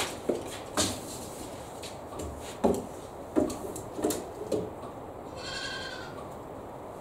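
A wooden 2x4 being shifted and set against the table and fence of a radial arm saw, making a series of short hollow knocks. About five seconds in, a goat bleats once, briefly.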